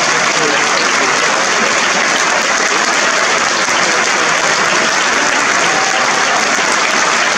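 Large theatre audience applauding, a dense, unbroken sound of many hands clapping at a steady level.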